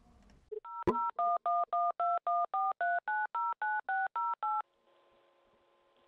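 Touch-tone (DTMF) telephone keypad dialling a phone number: a sharp click, then a quick run of dual-tone key beeps at about four a second. The line then goes to a faint steady tone.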